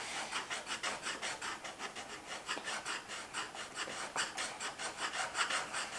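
Colored pencils scribbling on paper: quick back-and-forth coloring strokes, several a second.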